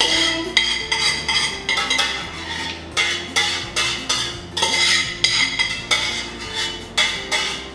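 A spoon scraping and clinking against the inside of a stainless steel pot as thick tomato sauce is scraped out of it, in irregular knocks about twice a second.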